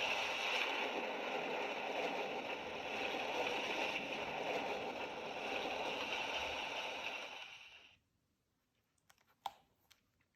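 Recorded sound effect of heavy rain splashing on leaves, played from a children's sound book's speaker: a steady hiss and patter that cuts off suddenly about eight seconds in. A few faint clicks follow near the end.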